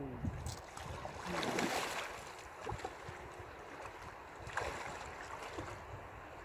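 Shallow river water lapping and splashing close by, with two louder rushes of splashing, one about a second in and another past four seconds in.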